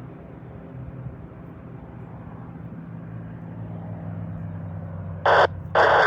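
Distant propeller aircraft engine droning steadily, slowly growing louder, with two short loud harsh bursts near the end.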